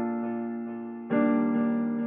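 Intro music: sustained electric-piano chords, a new one struck about a second in, each fading slowly.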